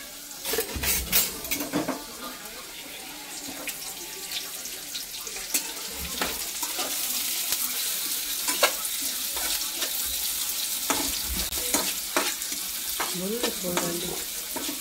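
Chopped onion frying in hot oil in a kadhai, a steady sizzle that grows louder after the first few seconds. A metal spoon stirring through it scrapes and knocks against the pan now and then.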